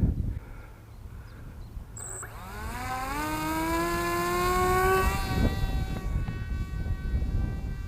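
Small brushless electric motor (BR1806 with a 5040 prop) on a foam-board RC plane winding up about two seconds in, its whine rising steadily in pitch for about three seconds, then running on at a steadier pitch. Wind rumbles on the microphone throughout.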